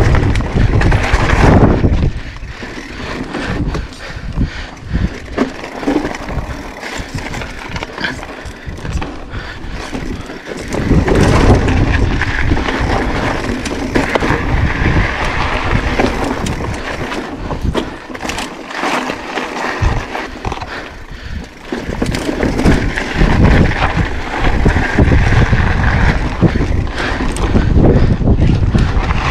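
Mountain bike riding over sandstone slickrock and a dirt trail: tyre noise and frequent rattles and knocks as the bike goes over bumps. A heavy, uneven low rumble of wind on the microphone runs underneath.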